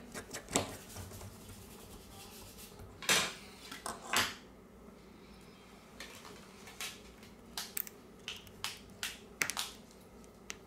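Scattered sharp clicks and light taps of a screwdriver and small parts handled on a smartphone's metal middle frame, as a flex cable is laid in and pressed into place; the loudest clicks come about three and four seconds in.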